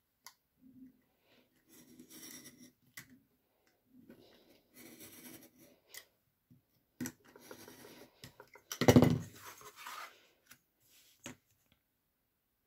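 Stanley knife scoring through thick grey board along a metal ruler, several short scraping strokes. About nine seconds in there is one much louder clatter, the loudest sound here.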